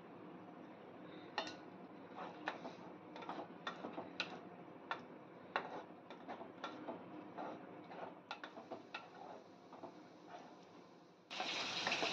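Wooden spatula clicking and scraping against a non-stick kadai while stirring coconut milk into a simmering tomato-onion masala, in many sharp, irregular knocks. Near the end a louder steady hiss cuts in abruptly.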